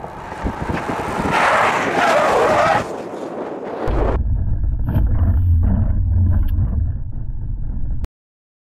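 Car driving at speed on a test track, heard from inside the cabin: a loud rushing noise for the first few seconds, then a steady low engine and road rumble that cuts off suddenly about eight seconds in.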